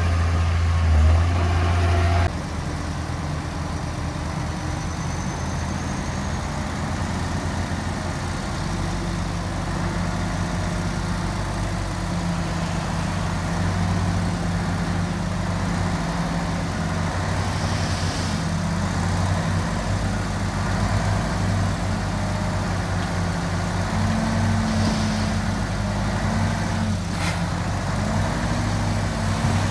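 Heavy construction-machine diesel engine running steadily, with a few short rises and falls in revs near the end.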